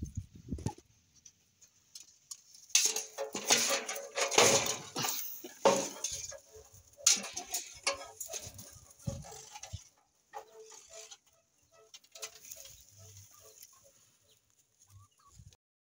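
Chickens in a wire-mesh pen, with loud metallic clattering and rattling from about three to ten seconds in, then a few soft clucks as it quietens.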